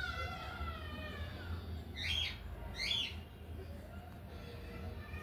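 Cockatiel calling: a long whistle falling in pitch at the start, then two short, harsh squawking calls about a second apart.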